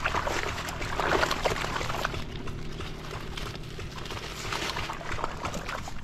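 Water splashing and sloshing, strongest in the first two seconds and again about four to five seconds in, over a steady low hum.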